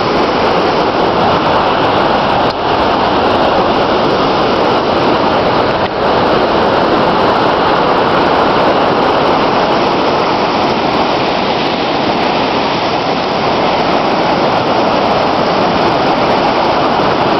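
Floodwater pouring through the open floodgates of Bearspaw Dam on the flood-swollen Bow River: a loud, steady rushing of water.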